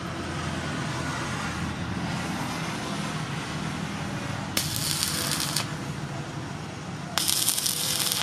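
Arc (stick) welding: two short bursts of the electrode arc, each about a second long, about halfway through and again near the end, laying short tack welds on steel. A steady low hum runs underneath.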